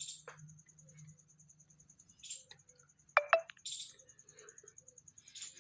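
Pet parrot giving two short, sharp calls in quick succession about three seconds in, among soft scratchy clicks and rustles.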